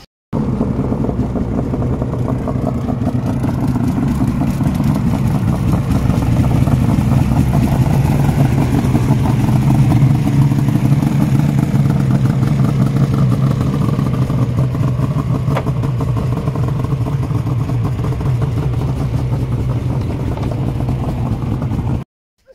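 Snowmobile engine running hard, steady with its pitch drifting gently up and down; it starts and cuts off abruptly.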